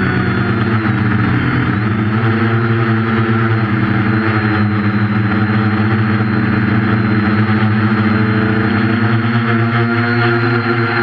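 Quadcopter's four 1200kv brushless motors spinning 8.5-inch propellers, a loud steady buzz heard from the onboard GoPro. The pitch dips briefly and climbs back about a second in, then holds steady.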